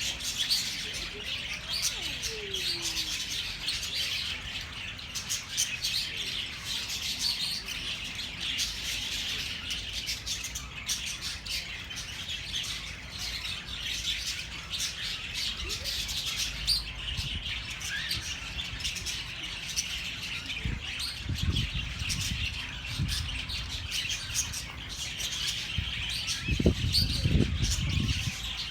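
Many small birds chirping and twittering at once, a dense, continuous chorus of short high calls. A few low rumbles come through in the last third.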